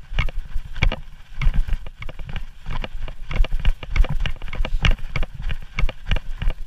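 A hiker's footsteps on a snowy trail close to the microphone: quick, uneven steps a few times a second, each a low thump with a sharper crunch or click.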